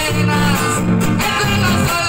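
Loud Latin American dance music, with a bass line on a steady beat under guitar and a melody line.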